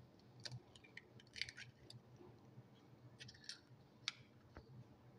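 Faint clicks and taps of an eggshell being pulled apart over a glass bowl and the empty shell being set in a small glass dish, with one sharper tick about four seconds in; otherwise near silence.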